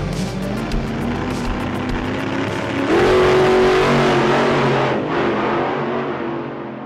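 Engine revving: it climbs sharply to a high, steady pitch about three seconds in, holds there, eases off about two seconds later and fades away.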